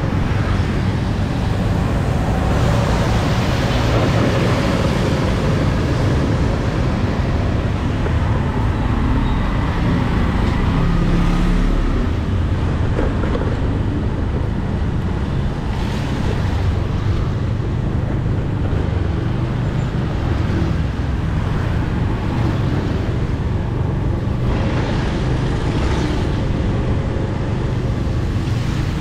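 Steady street traffic noise from motor vehicles, with a low rumble throughout and a few louder swells as vehicles pass.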